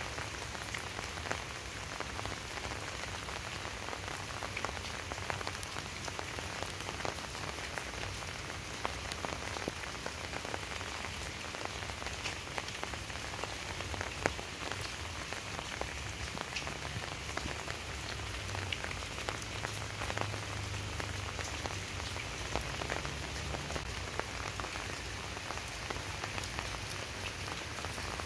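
Steady rain falling, a constant hiss with many small drop ticks, over a low hum.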